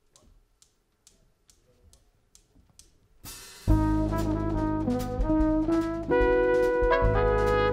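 Faint regular ticks, about two a second, lead into a jazz band entrance about four seconds in: flugelhorn and trumpet play the melody together in harmony over double bass and drums.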